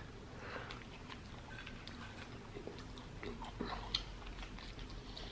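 A person chewing food close to the microphone, with soft wet mouth sounds and small clicks.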